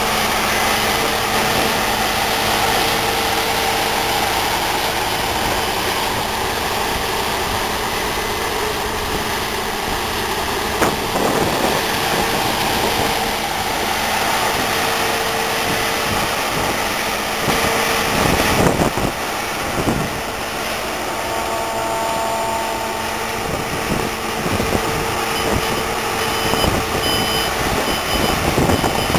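Claas Lexion combine harvester running steadily under load while cutting and threshing sunflowers, its engine and machinery giving a constant noise with a steady hum. Near the end a reversing alarm starts beeping at an even pace.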